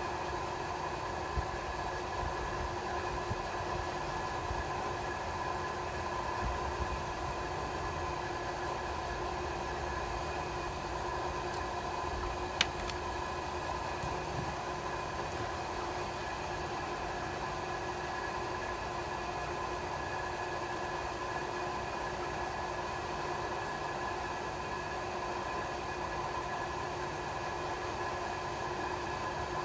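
Steady machine hum holding several fixed tones at an even level, with a few small clicks and one sharp click about twelve seconds in.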